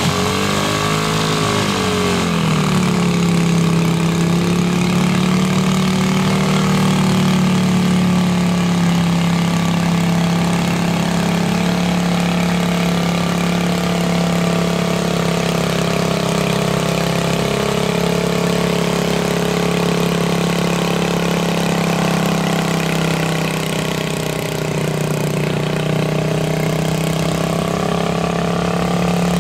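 Small engine of a quarter-scale pulling tractor revving up and down briefly at the start, then running at a steady idle while it sits hitched to the sled, not yet pulling.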